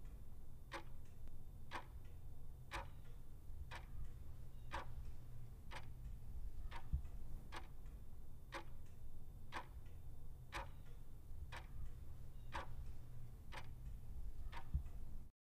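Countdown timer sound effect ticking about once a second, with fainter ticks in between, over a steady low hum.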